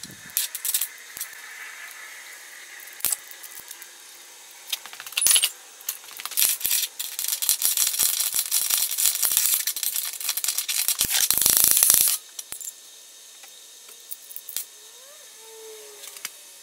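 Steel brackets, a tube spacer and bolts clinking and rattling against each other as they are fitted together by hand. Scattered sharp clinks, then a long stretch of rapid metallic rattling from about six to twelve seconds in.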